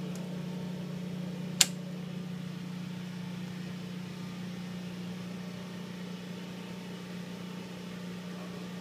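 Steady low mechanical hum, with one sharp click about one and a half seconds in.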